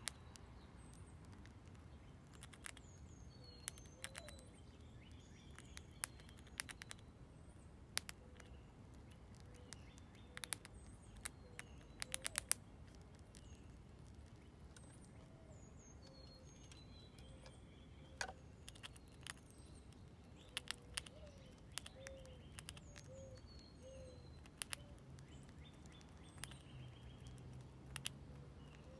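Gray squirrel gnawing dried corn kernels: irregular sharp crunching clicks, some in quick little clusters. Faint short bird chirps sound in the background.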